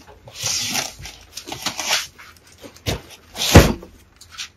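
Cardboard motor boxes being pulled out and handled: scraping and rustling of cardboard, a thump about three seconds in, then a heavier thump half a second later as a boxed servo motor is set down.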